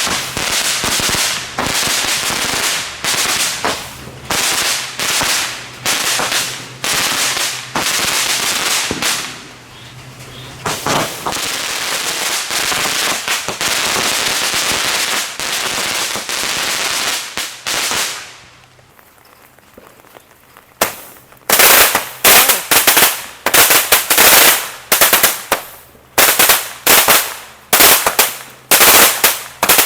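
Consumer fireworks going off: a steady run of hissing, crackling bursts about once a second. After a lull of about two seconds comes a louder series of sharp crackling bangs.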